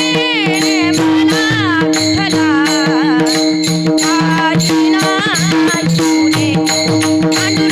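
Varkari kirtan music: a woman sings a sweet, heavily ornamented devotional melody over a steady held drone, with pakhawaj drum strokes and small cymbal strikes keeping a regular beat.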